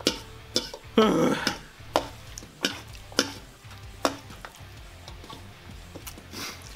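Metal fork scraping and clinking against a large stainless steel mixing bowl while pasta in Alfredo sauce is stirred and scooped: a string of sharp scrapes and clinks, with one longer scrape about a second in.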